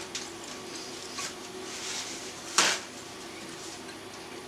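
A sheet of paper towel pulled from a roll and torn off, with one short, sharp rip about two and a half seconds in. Before it come a few light knocks and a brief rustle, over a faint steady room hum.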